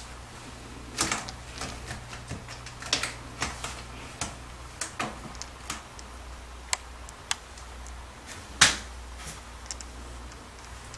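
Cat's claws on a sisal-rope scratching post and cat-tower platform: irregular scratches and sharp clicks, the loudest about eight and a half seconds in.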